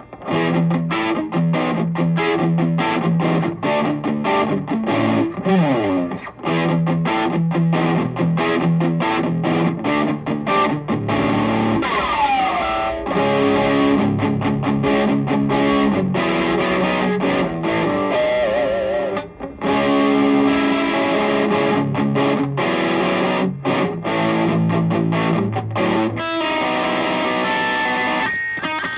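Electric guitar with a bridge humbucker, played through a Bruce Bennett Brown Sound high-gain distortion into a Peavey 5150 2x12 cabinet simulation: a heavily distorted rock riff of rhythmic palm-muted chugs and chords. It has sliding notes about five and twelve seconds in, a wavering held note around eighteen seconds, and a brief break just after.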